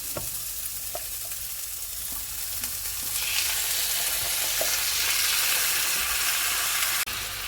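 Soy-marinated chicken frying in a pan of hot sunflower oil with garlic, onions and ginger, a steady sizzle that grows louder about three seconds in.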